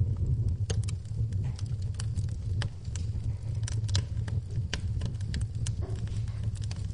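Wood fire burning in a fireplace, with a steady low rumble of the flames and irregular sharp crackles and pops from the burning logs.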